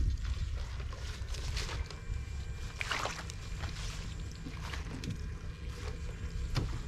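Water sloshing and splashing in a few short bursts, the strongest about three seconds in, over a steady low rumble.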